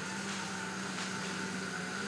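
Diesel engine of heavy earthmoving equipment running steadily, with an even hum and a higher steady whine.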